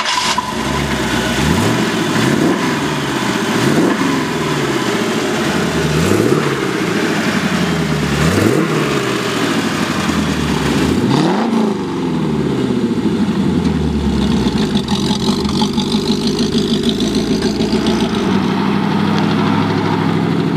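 Chevrolet 350 small-block V8 with a Holley four-barrel carburettor running: revved about five times in quick rises and falls, then settling to a steady idle for the rest.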